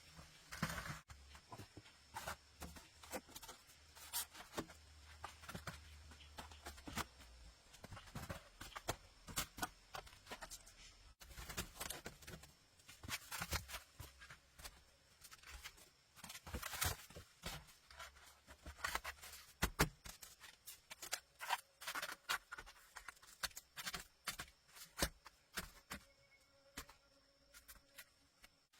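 Irregular sharp clicks, knocks and scrapes of hand work with building materials, coming in quick clusters with short pauses between.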